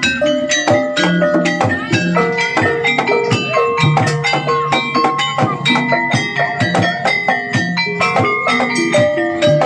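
Javanese gamelan music for a kuda kepang dance: a quick, steady run of struck notes on tuned metal gongs and metallophones, ringing over one another, with drum strokes underneath.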